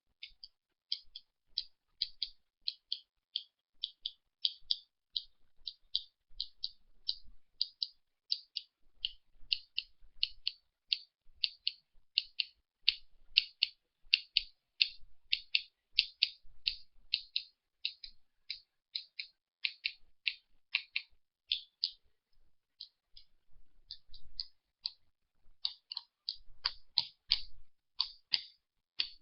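A fast series of short, high-pitched clicks, about three a second, with a couple of brief pauses near the end.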